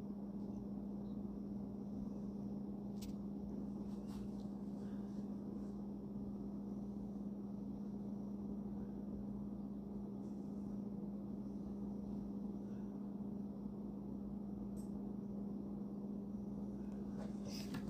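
Steady low hum of room tone, with a few faint light clicks scattered through.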